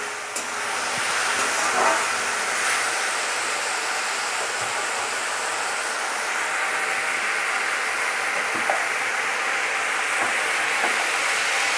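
Potatoes, onions and ginger-garlic-chilli paste frying in hot oil in a metal kadai, a steady sizzle. A spatula scrapes the pan a couple of times in the first two seconds.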